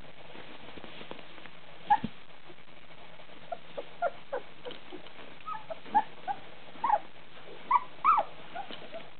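Very young puppies, only just walking, giving short high squeaks and whimpers: one about two seconds in, then a run of them through the second half.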